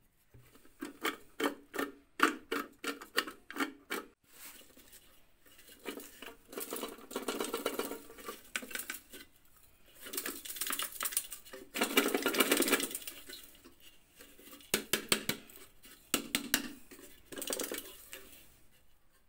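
The metal body of an old Demon Type 235 kerosene camping stove is knocked and shaken. First comes a run of sharp knocks, then long stretches of rattling and scraping as loose rust and dirt are shaken out of it, and a few more knocks and rattles near the end.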